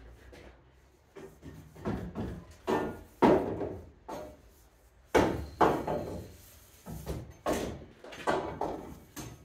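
Lengths of copper pipe being fed through the open webs of timber space joists, knocking and clattering against them in a run of irregular clunks, some with a short ring.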